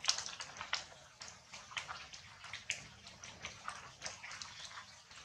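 Rain dripping onto wet leaves and ground: many small, irregular taps, a few noticeably sharper than the rest.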